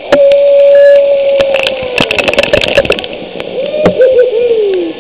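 A person's voice hooting a long, held "ooooh" that sags in pitch, then a second wavering hoot that slides down near the end, with a burst of sharp clattering knocks in between.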